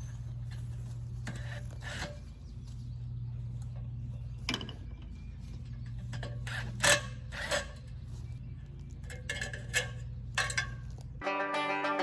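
Scattered clicks, creaks and knocks of metal parts and tools being handled, as the screws and ladder guide rail are taken off the log at the Alaskan sawmill. They sound over a steady low hum. Plucked-string music comes in near the end, and the hum stops with it.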